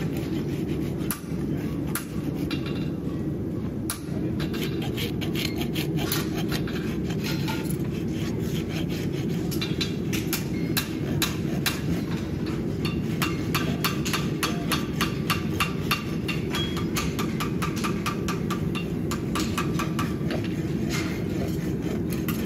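Hammer blows on steel with a ringing tone, coming in quick runs of about five strikes a second, denser in the second half, over a steady low roar.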